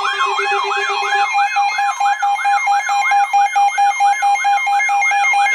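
Weather radio alert alarms sounding together: a warbling, siren-like tone sweeping up and down about two or three times a second over a fast-pulsing beep. A lower steady tone drops out about a second in.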